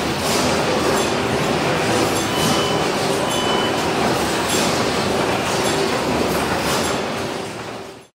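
1914 Richard Hornsby twin-cylinder Stockport gas engine running steadily, its flywheels and flat drive belt turning, with a regular pulse about once a second. The sound fades out near the end.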